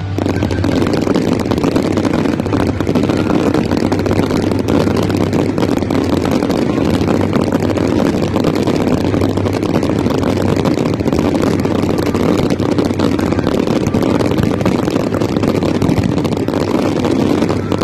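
Fireworks finale barrage: many bangs and crackles in quick succession, merging into a loud, continuous rumble with no break.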